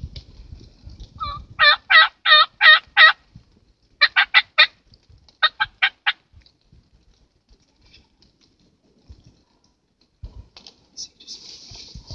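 Turkey yelping: three runs of loud, clear yelps, five, then four, then five, about three to the second, stopping about six seconds in.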